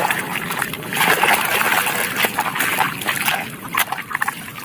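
Muddy puddle water splashing and sloshing as a hand swishes a plastic toy vehicle through it. The splashing is strongest from about a second in to about two and a half seconds, and eases off near the end.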